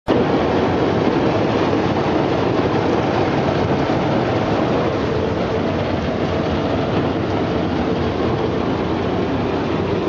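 Brush-roller potato washing and peeling machine running: potatoes tumbling against the rotating rollers under a water spray, a steady dense rattle and hiss.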